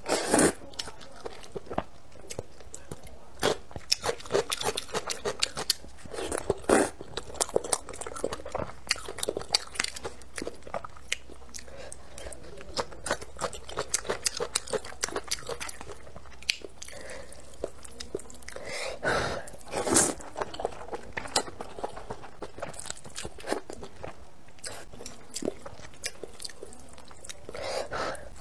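Close-miked eating of spicy vermicelli noodles: steady wet chewing with many small crunching clicks, broken by a few louder noodle slurps, one right at the start, one about a quarter of the way in, one around two-thirds through and one at the very end.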